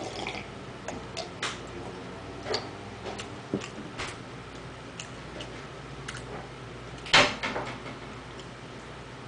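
Scattered small clicks and smacks of eating and sipping from a mug close to the microphone, with one louder knock about seven seconds in.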